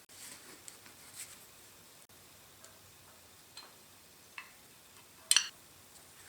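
Scattered light clicks and taps of small metal parts being handled, with one louder, ringing metallic clink near the end.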